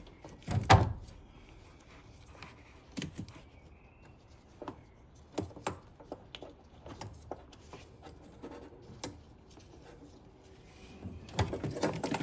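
Knocks and clicks of a car battery being worked free of its tray and clamp and lifted out of the engine bay. A loud knock comes about half a second in, scattered knocks follow, and a denser run of knocks comes near the end as the battery comes up.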